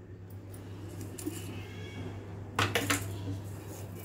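Stainless steel bowl of cooked mutton clinking and knocking as it is handled and moved on the stone counter, with a short cluster of metallic clinks about two-thirds of the way in. A low steady hum runs underneath.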